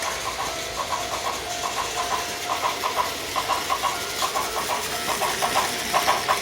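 Plarail toy train's built-in running-sound effect: a recorded clickety-clack of wheels over rail joints, small clusters of clicks repeating about once a second over a light hiss.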